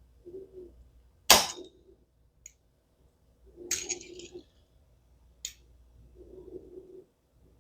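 Kitchen tools handled while cutting ravioli: a sharp knock about a second in, a shorter clatter a little later, and a few light clicks, with soft rubbing sounds between them.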